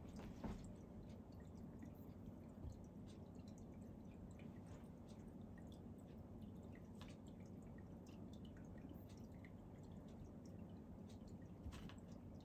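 Near silence: room tone with a low steady hum and faint, scattered small clicks and ticks at irregular moments.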